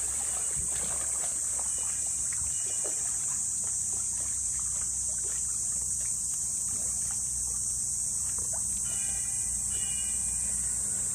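An Indian rhinoceros wading in a concrete pool, the water sloshing and dribbling around its body in many small splashes, under a steady high-pitched drone of summer insects.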